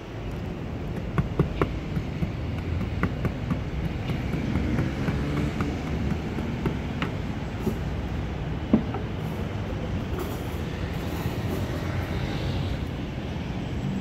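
Sharp knocks of a mallet cracking open a baked salt crust on a tray, several in the first few seconds and a few more later, the loudest about two-thirds of the way in, over a steady low rumble.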